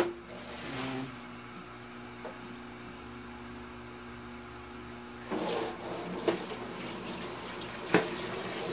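Kitchen faucet running into a stainless steel sink, coming on about five seconds in, with the water splashing as hands rinse something under the stream. Two sharp knocks sound during the rinsing.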